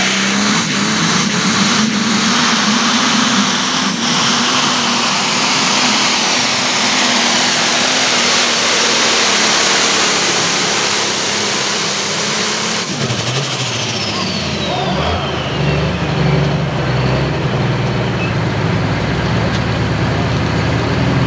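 Modified turbocharged pulling tractor running at full throttle under load from the sled, with a high turbo whine over the engine. About thirteen seconds in the throttle shuts off: the turbo whine falls away in pitch and the engine drops to idle.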